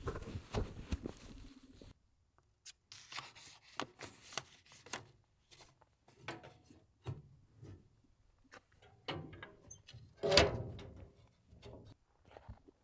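A hiker's footsteps and the rustle of clothing and gear, in uneven steps, with one louder knock about ten seconds in. The sound drops out briefly about two seconds in.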